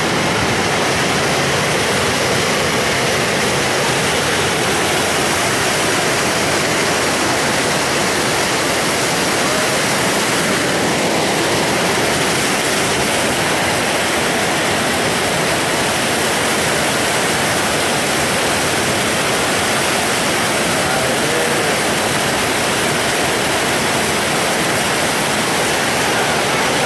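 Waterfall, its falling water making a steady, loud rushing noise.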